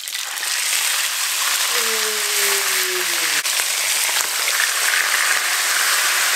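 Whole tilapia frying in hot cooking oil in a pan, a loud, steady sizzle that starts as the fish are slid into the oil. About two seconds in, a short voice-like hum falls in pitch over a second or so.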